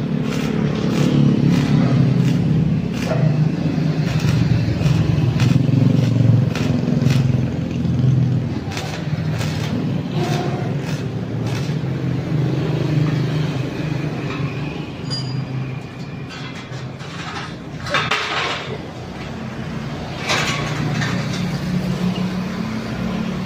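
Arc welding on a steel-tube window grill frame: the arc crackling in spells over a steady low drone. Near the end, broader bursts of metal clatter and scraping as the frame is handled and stood upright.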